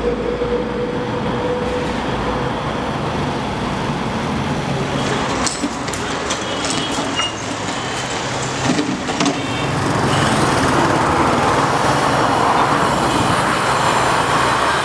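Busy street ambience: steady traffic noise with a scooter passing and a few clicks, growing louder about ten seconds in as the murmur of a walking crowd joins it.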